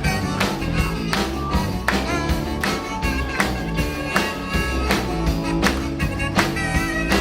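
Live band playing an instrumental passage of an upbeat rock song, with a steady drum beat under sustained instrument notes.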